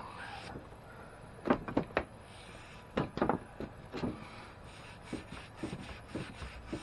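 Hand brush scrubbing the charred surface of an oak board, scraping off loose char in short strokes: a quick cluster of strokes about a second and a half in, another around three seconds, then lighter, faster strokes.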